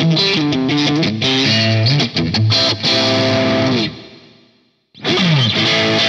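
Soloking MT-1 Custom 22 electric guitar played with overdrive: fast distorted riffing and chords. About four seconds in, a held note dips in pitch and fades out, and after about a second's gap the playing starts again with a note sliding down in pitch.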